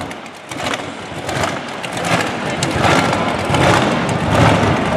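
PT Cruiser exhibition drag car's engine running and revving, with irregular pops as its exhaust headers spit flames.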